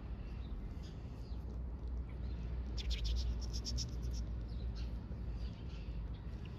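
A hand stroking a cat's fur: soft rustling, with a cluster of quick brushing scratches about three seconds in, over a low steady rumble.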